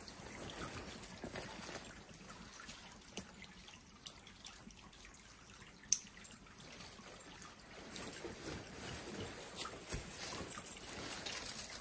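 A small stream trickling steadily, with scattered light clicks over it and one sharper click about six seconds in.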